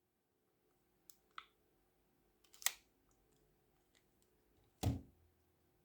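A few faint clicks in the first three seconds, the third the loudest, then a single dull thump about five seconds in.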